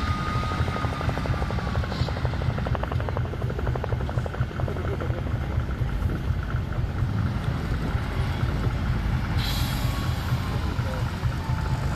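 Tatra 813 8x8 truck's air-cooled V12 diesel engine working under load as the truck drives through deep sand: a steady, deep, pulsing rumble. A brief hiss comes about nine and a half seconds in.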